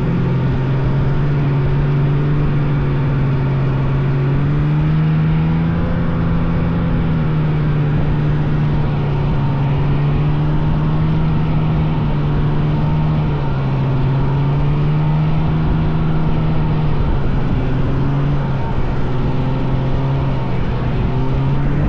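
Vintage snowmobile engine running at a steady cruising throttle, its pitch easing up and down a few times as the throttle changes.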